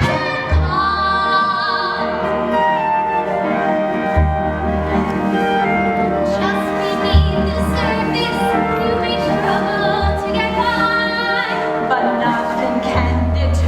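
A musical-theatre song: singing with instrumental accompaniment, long held notes with vibrato over a deep bass note that sounds again every few seconds.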